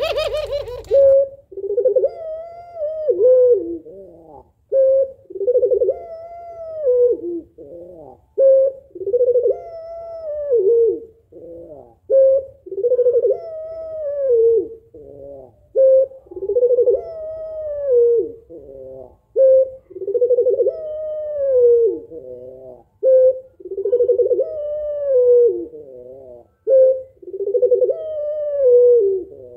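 Female puter pelung (Barbary dove) calling over and over: each phrase is a short note followed by a longer coo that rises and then falls, repeating about every three and a half to four seconds, some eight times. It is the female's call used to coax a reluctant male into cooing.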